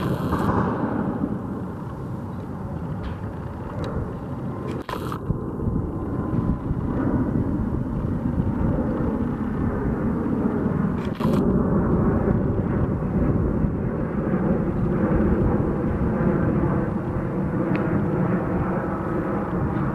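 Airbus A220-100 (Bombardier CS100) jet airliner's Pratt & Whitney PW1500G geared turbofans running as the aircraft flies by low, a steady rushing engine noise that grows louder about a third and again about halfway through. A few brief clicks sound over it.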